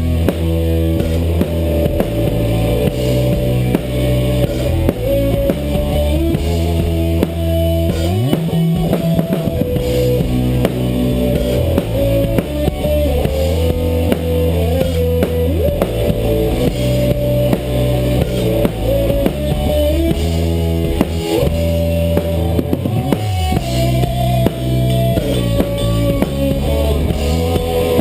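Band playing live: drum kit with bass drum under bass and guitar, the guitar line sliding between notes a couple of times.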